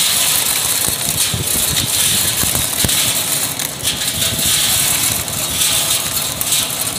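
Sunflower seed shelling machine running: a steady, loud noise of seeds and husks streaming through it and out of its chute.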